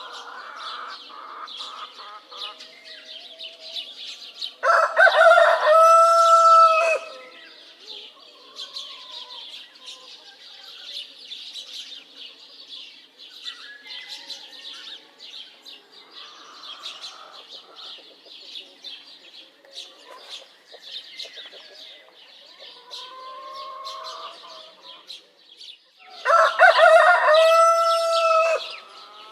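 Rooster crowing twice, each crow about two seconds long and the loudest sound, over a steady chorus of small birds chirping, with softer hen clucking in between.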